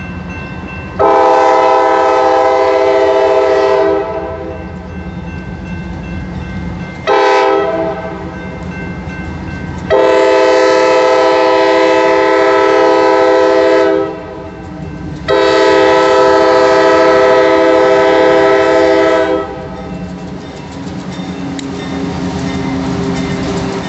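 GE AC6000CW diesel locomotive sounding its multi-note air horn for a grade crossing: a long blast, a short one, then two long blasts. The diesel engine's low rumble runs underneath and grows near the end as the locomotive draws closer at crawling speed.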